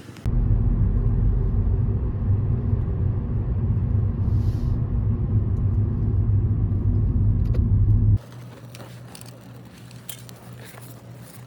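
Low, steady engine-like rumble that starts and cuts off abruptly, lasting about eight seconds, followed by a much quieter low hum with a few faint clicks.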